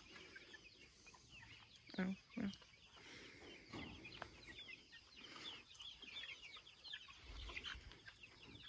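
A flock of young laying-hen chicks peeping and clucking softly while they forage, many short high chirps overlapping. Two short, louder calls stand out about two seconds in.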